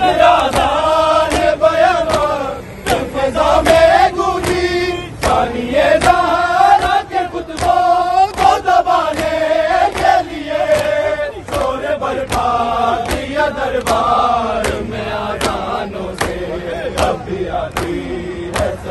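Crowd of mourners chanting a noha in phrases, over a steady beat of hands striking chests in matam, a sharp slap roughly every two-thirds of a second.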